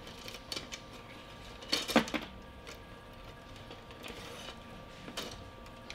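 Arrows being handled: light clicks and rattles of shafts knocking together, with a louder clatter about two seconds in.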